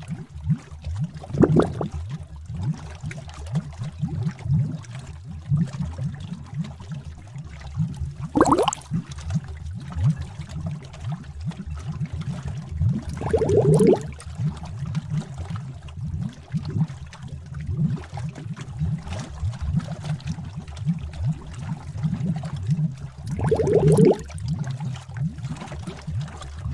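Witch's cauldron bubbling sound effect: thick liquid bubbling in a steady stream of small low pops, with a few larger bubbles breaking now and then.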